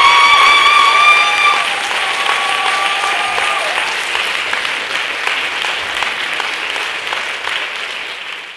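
Audience applauding and cheering, with a long high-pitched cry over the clapping in the first second and a half and another from about two to three and a half seconds in; the applause tapers off near the end.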